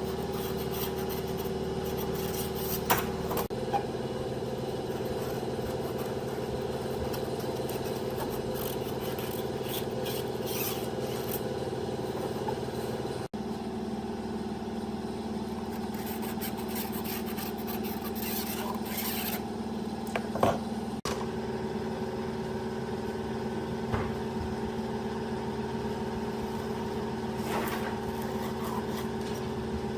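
A machine motor running with a steady hum, its pitch and tone shifting abruptly a few times, with a few short knocks and scrapes on top.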